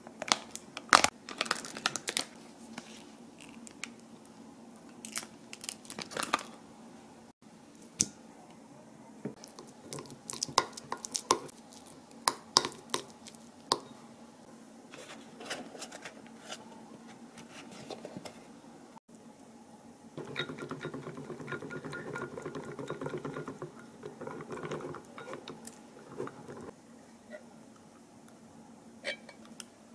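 Close-up food-prep sounds. First a plastic mascarpone tub is opened, its lid and seal crinkling and clicking. Next a metal spoon taps and scrapes against a glass bowl as it works the soft cheese. In the last third there is a steadier stretch of mixing in the bowl.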